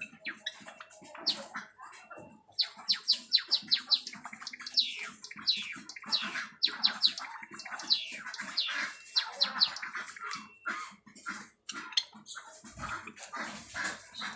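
Java sparrows giving a dense run of short, quickly falling chirps, with quick ticks of beaks pecking at soft food in a plastic tub.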